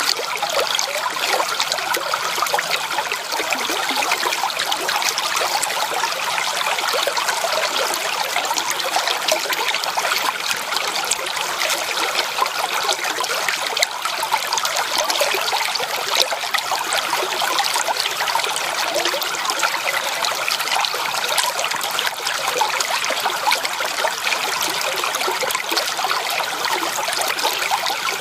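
Shallow creek water trickling and babbling over stones, a steady even rush.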